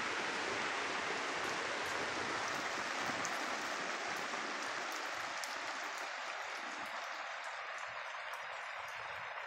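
Steady rain falling, an even hiss with a few faint drip ticks, easing slightly in level over the second half.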